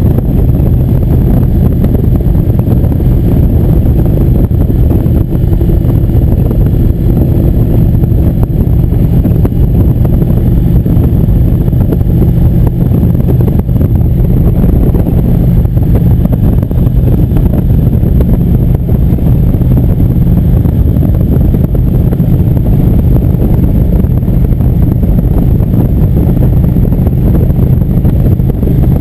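Cruiser motorcycle riding at steady highway speed: a constant low engine drone mixed with wind rushing over the microphone.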